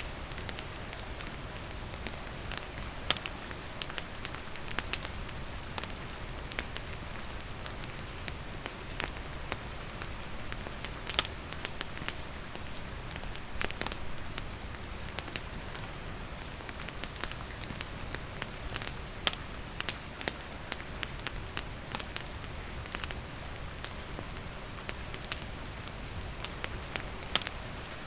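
Campfire crackling, with sharp pops at irregular intervals, over steady falling rain.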